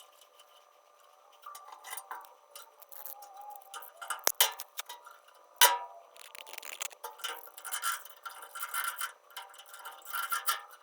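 Irregular metallic clinks, taps and clicks of metal parts and tools being handled, a little louder from about two seconds in.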